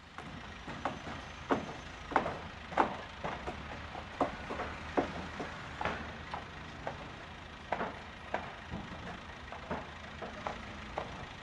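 Steel tubes of a modular rosette scaffold clanking and knocking as uprights and ledgers are handled and fitted together. There are sharp, irregular knocks, several a second, over a steady low rumble.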